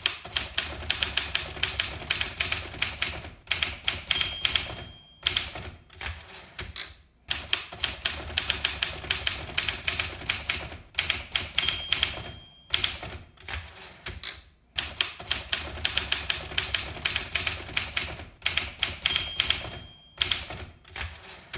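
Typewriter sound effect: runs of rapid keystrokes clacking, with the carriage-return bell dinging three times.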